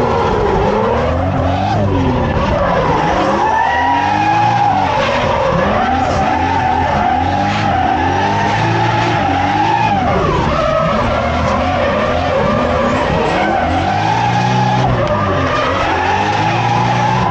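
Turbocharged JZ-series straight-six of a drifting Toyota Chaser JZX100, heard from inside the cabin, revving up and falling back again and again, over a steady rush of tires sliding and squealing.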